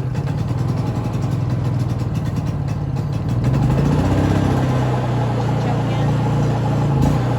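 Honda EU3000iS inverter generator's single-cylinder engine running steadily just after being pull-started on choke. The engine note gets louder about three and a half seconds in.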